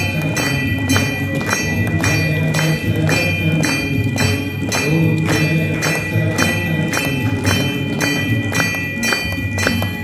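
Aarti music: a temple bell struck in an even rhythm, about two to three strokes a second, each ringing on, over voices singing the aarti hymn.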